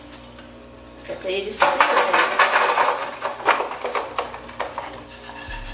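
Sugar-coated peanuts tipped from an aluminium pot into a metal baking tray, clattering and rattling against the metal with the scrape of a spatula, starting about a second and a half in. The sugar has cooked down to a dry, sandy crust, the point at which the candied peanuts are turned out.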